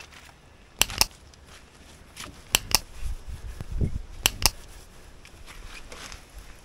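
Mouse-click sound effects: three sharp double clicks about a second and a half apart, over faint rustling.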